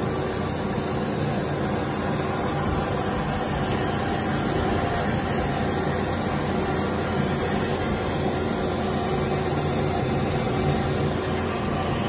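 Steton CL 1000 wide belt sander running, its 11 kW motor and sanding belt giving a steady mechanical drone with a hum of several steady tones.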